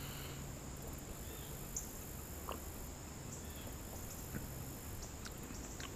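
Crickets chirring steadily and high-pitched in the background, over a faint low hum, with a few faint ticks.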